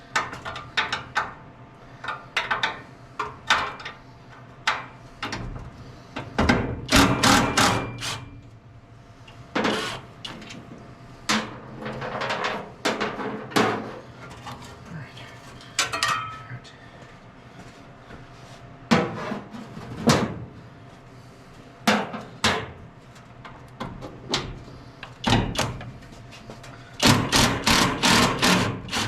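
Irregular clanks and knocks of metal truck parts and hand tools being handled, with a quick run of strikes about seven seconds in and another near the end.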